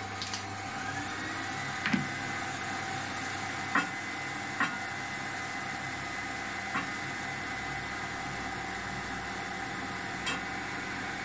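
A wooden block knocking lightly on a bandsaw's metal table as it is handled and set down, five times, over a steady workshop machine hum in which one tone rises and levels off about a second in, like a motor spinning up.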